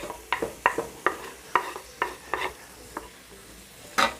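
A cooking utensil stirring vegetables in a frying pan, clicking and scraping against the pan irregularly two or three times a second, over a faint sizzle of onions and green bell peppers frying in oil. A louder knock against the pan comes near the end.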